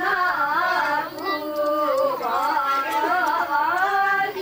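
Rabari women singing a traditional folk song together: a slow melody of held notes that waver and slide.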